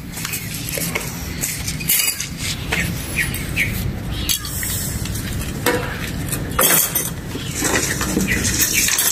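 Rubble and bone fragments being picked through and moved by hand, giving scattered small clinks and scrapes.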